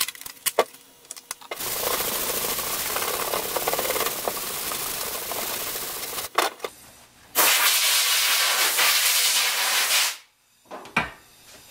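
Steel transmission separator plate being hand-sanded on sandpaper: a steady scratchy rasp in two long stretches, the second louder and ending abruptly, with a few clicks and taps of the plate and paper being handled before and between them.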